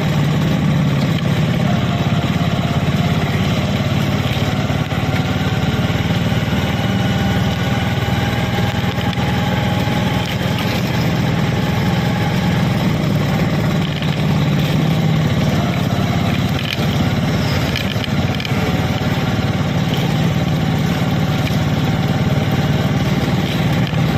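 A vehicle's engine running steadily with road and wind noise while driving along a highway at a constant speed.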